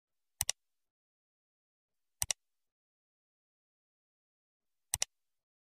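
Three quick double clicks from a computer-mouse click sound effect, a couple of seconds apart, with dead silence between them.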